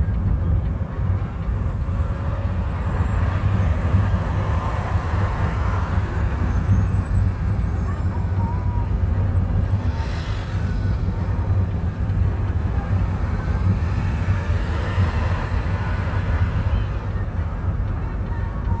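Steady low rumble of engine and road noise inside a moving car's cabin at highway speed.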